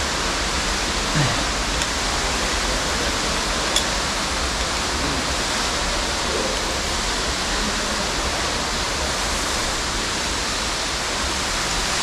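Steady rushing of a large underground waterfall pouring down a cave shaft, with a single faint click about four seconds in.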